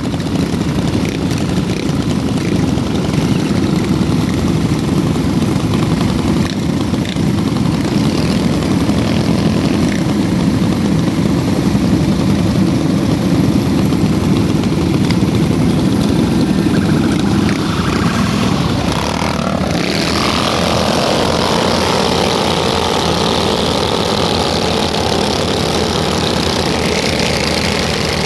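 A pack of mini bikes and motorcycles running together, the small engines idling and revving around a stop. About twenty seconds in, the sound changes, with more hiss as the group rides off.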